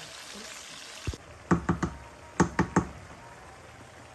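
Sliced onions sizzling in oil in a frying pan; the sizzle cuts off abruptly about a second in as liquid sauce is added to the pan. Then two quick sets of three sharp knocks against the pan.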